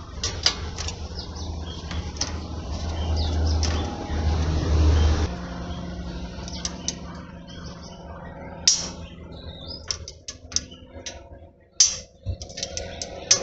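Ratchet and socket clicking in short irregular bursts while a suspension nut is undone, with metal tools clinking. A low rumble runs under the first five seconds and stops suddenly.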